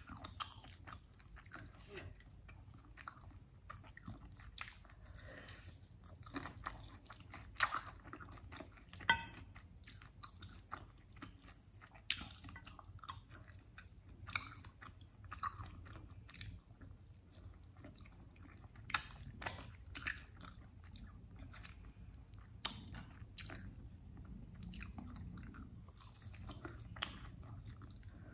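Close-miked eating sounds: chewing and biting into chicken wings eaten by hand, with irregular sharp mouth clicks and crunches.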